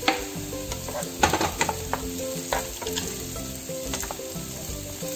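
Chopped onion, carrot, beans and green bell pepper sizzling in hot oil in a non-stick frying pan, stirred with a spatula that scrapes and knocks against the pan several times.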